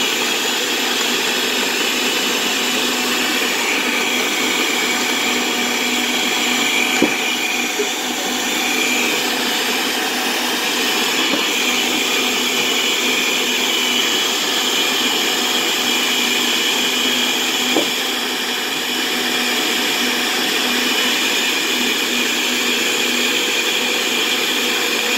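Countertop blender with a glass jug running steadily at full speed, blending a thick drink, with a couple of brief knocks along the way.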